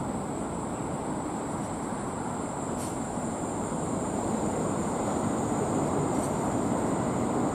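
JR East 211 series electric train moving out past the camera, its running noise a steady rumble that grows louder from about four seconds in, with a constant high hiss over it.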